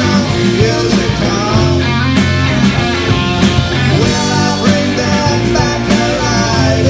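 Three-piece rock band playing live: guitar, bass guitar and drums, with a steady driving beat.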